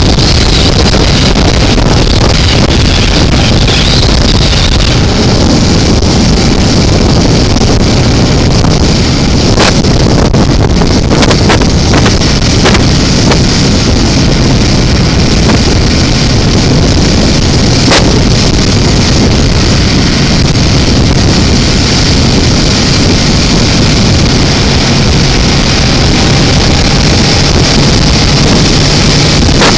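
Steady wind rush on the microphone of a motorcycle at road speed, over the steady running of a 2005 BMW F650CS's single-cylinder engine. A couple of sharp clicks cut through, about ten and eighteen seconds in.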